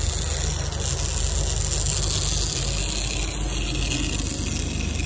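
Sportfishing boat's engine running steadily under way at trolling speed, a low even drone over the rush of the churning wake and wind.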